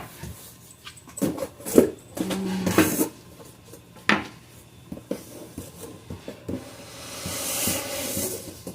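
Flat-pack organizer parts and hardware being handled and sorted: scattered small knocks and clicks, then a rustling sound near the end.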